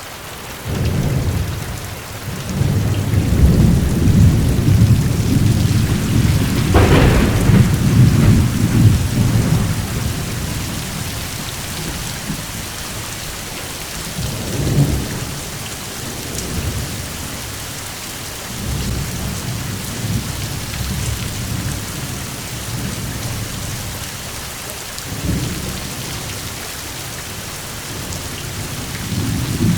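Steady rain with rolling thunder. A long low rumble fills the first ten seconds, with a sharp crack about seven seconds in. Shorter, softer rumbles follow several times over the rain's even hiss.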